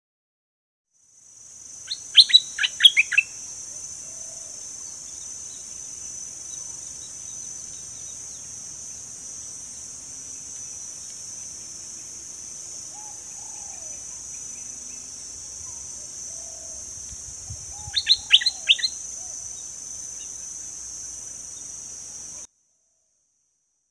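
Stripe-throated bulbul singing two short bursts of quick, clear notes, one about two seconds in and one near the end, over a steady high-pitched buzz that stops abruptly shortly before the end.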